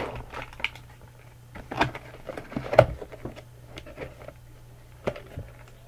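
Handling noises from a small cardboard gift box and the salt lamp in it: a run of knocks, taps and rustles, the loudest knock about three seconds in and two more near the end.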